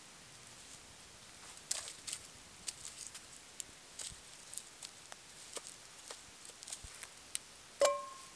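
Wood fire crackling, with irregular sharp snaps and pops. Near the end comes a single ringing metallic clank as a frying pan is set down over the fire.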